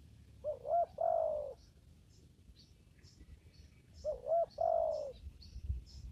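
Spotted dove cooing: two phrases a few seconds apart, each of two short notes followed by a longer, falling coo.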